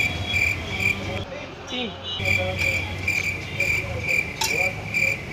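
Cricket chirping: a series of short, high chirps repeating a few times a second, with a pause of about a second early in the run. It is the comic 'crickets' effect for a long, awkward wait.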